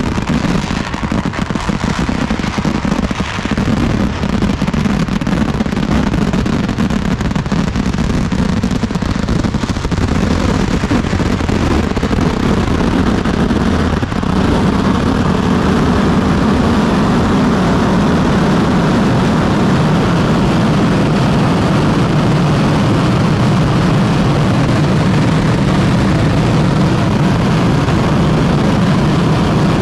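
Kerala festival fireworks (vedikkettu) going off in a dense, unbroken barrage, the explosions merging into one loud continuous rumble with no single bang standing out. It grows slightly louder about halfway through.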